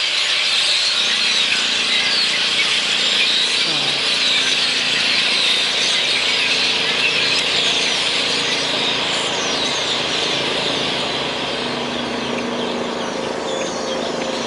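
A huge flock of blackbirds calling all at once: a dense, continuous din of squeaky chatter and whistles from hundreds of birds massed in the trees.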